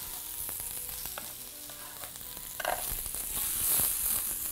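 Chopped savoy cabbage sizzling in hot oil in a frying pan, with the pan shaken and the leaves tossed near the end.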